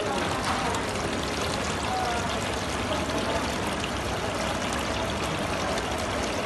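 Water spilling from the ledges of a decorative artificial-rock fountain and splashing steadily into its pool.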